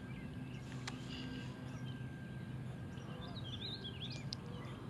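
Outdoor ambience of small birds chirping on and off over a steady low hum, with a single sharp click about a second in.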